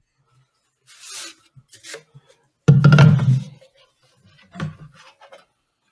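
A rolled paper poster being handled after coming out of a cardboard mailing tube: a paper rustle and slide about a second in, a few light clicks, then a loud dull thump about three seconds in and a smaller knock later.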